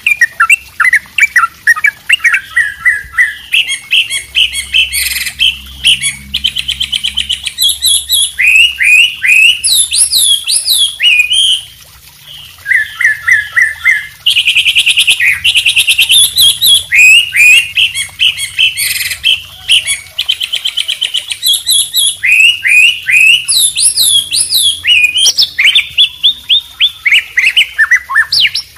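Layered songbird recording combining white-rumped shama (murai batu), wambi and trucuk ropel songs: a busy, nearly unbroken run of sharp chirps, quick down-slurred whistles and fast buzzy trills, with a brief lull about twelve seconds in.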